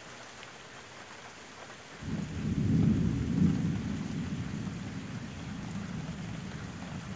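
Thunder rumbling over steady rain. The low rumble starts about two seconds in, builds to its loudest a second or so later, then slowly dies away.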